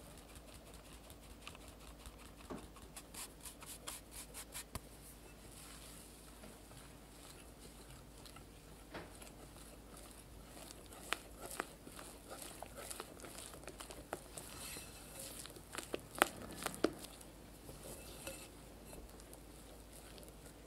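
Fine mesh sieve shaken and tapped as cake flour and matcha sift into a glass bowl, a rapid run of light ticks. Then a wire whisk stirs the powder into the egg-yolk batter, scraping and clicking against the glass bowl. All of it is faint.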